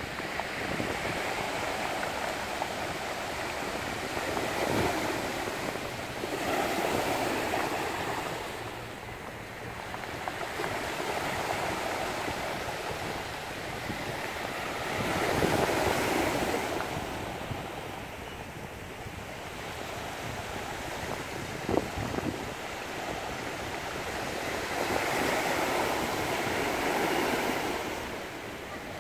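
Small sea waves washing onto the shore, the surf swelling and fading every several seconds, with wind on the microphone. One short sharp click about three-quarters of the way through.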